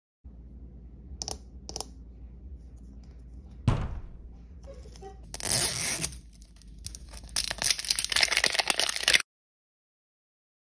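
Blind-bag packaging being torn open and crinkled by hand. A couple of light taps and a thump come first, then two spells of loud tearing and crackling, the second cutting off suddenly.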